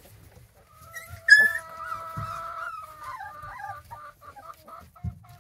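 Great Pyrenees puppies whining: one long, high whine starts about a second in, then breaks into a string of short whimpers.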